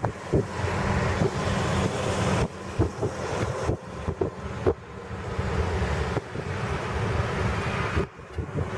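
Gusty wind buffeting the microphone, rising and falling irregularly, over the steady rush of a Boeing 737's jet engines running on the runway ahead of take-off.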